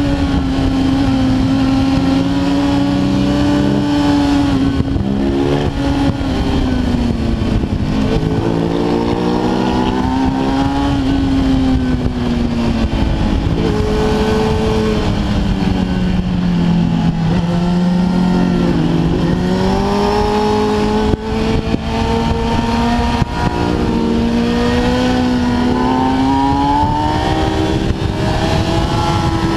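Kawasaki ZX-10R's inline-four engine under way at high revs, pitch rising and falling repeatedly as the rider works the throttle and gears. It drops lowest about two-thirds of the way through, then climbs hard again, with steady wind rush underneath.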